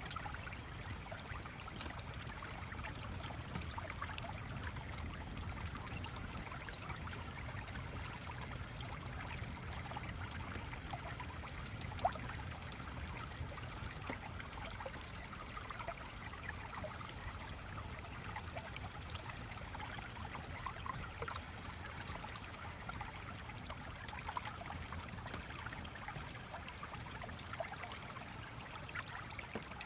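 A stream trickling steadily, layered with faint, scattered fireplace crackles and one sharper pop about twelve seconds in.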